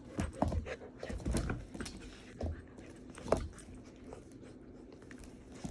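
Belgian Malinois puppies play-fighting: irregular thumps and scuffles with short dog noises. Most come in the first two seconds, then single knocks about two and a half and three and a half seconds in.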